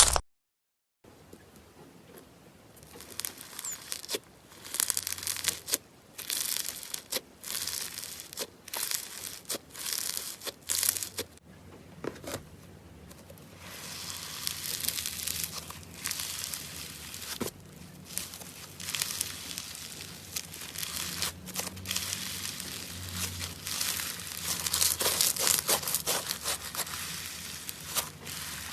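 Slime being squeezed and pulled by hand, starting about a second in: irregular bursts of crackling and crinkling that grow busier toward the end.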